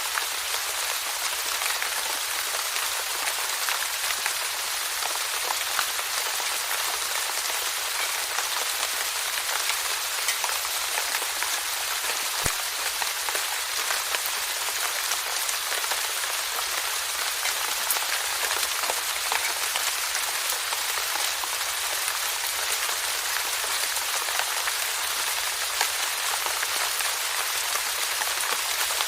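Steady rainfall, a dense hiss of many drops pattering on a surface with small individual drop ticks throughout.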